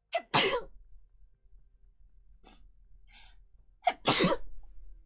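A woman sneezing twice, about four seconds apart. Each sneeze is a short voiced catch of breath followed by a loud burst.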